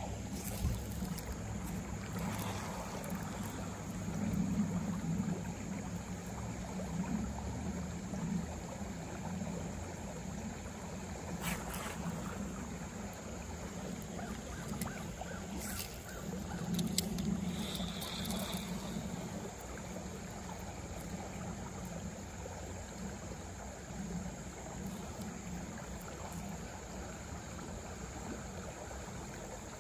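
Shallow creek water flowing and trickling steadily, with a few faint clicks and one brief high note a little past halfway.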